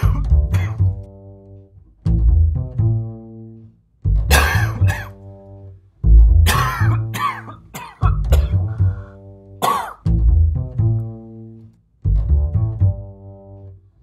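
Low plucked bass notes, one every two seconds, each fading away, with several sharp human coughs over them in short clusters, the loudest groups about four and six seconds in.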